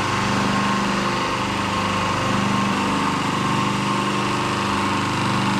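Electric motor of a workshop machine running steadily with a constant hum as engine fixings are worked on it.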